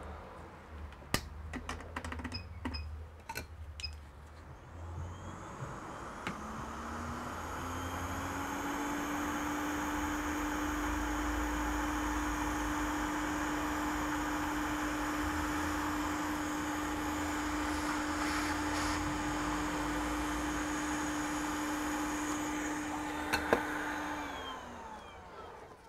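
Hot air rework station blowing to soften a label's adhesive on a laptop motherboard's RAM slot. Its fan spins up with a rising hum about six seconds in, runs steadily with a hiss, and winds down near the end. A few light tool clicks come in the first seconds, and one sharp click comes shortly before it stops.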